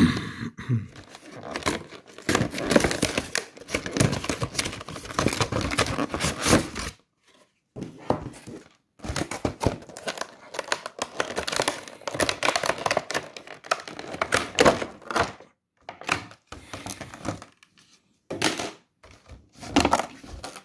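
Cardboard collection box and its clear plastic blister tray being opened and handled: irregular crinkling, rustling and light knocking of plastic and card, with a few short pauses.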